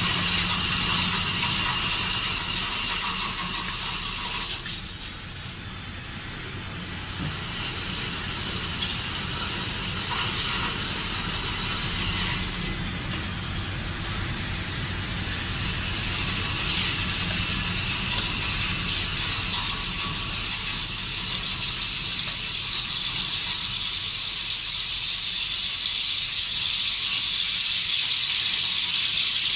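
Steady high hiss and squeal of machinery at work, dropping abruptly about four and a half seconds in and growing louder again from about sixteen seconds in.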